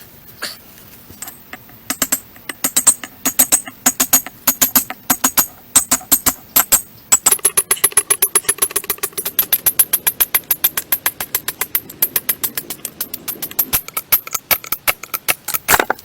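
Background music with a fast, steady percussive beat that starts about a second and a half in.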